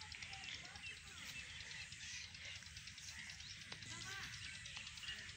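Outdoor ambience: birds chirping in short scattered calls, with faint distant voices, over a steady low rumble.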